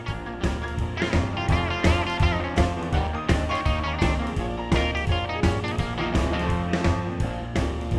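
Film score: upbeat guitar-led music with a steady drum beat.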